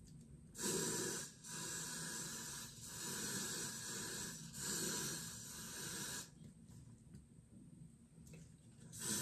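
Aerosol spray can hissing in four bursts, each about a second or more long, with short breaks between them; then it stops.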